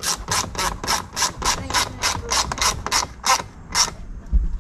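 Ratchet wrench clicking steadily, about four or five clicks a second, as it runs in the bolt that holds the top of the door panel; the clicking stops near the end, followed by a dull low thump.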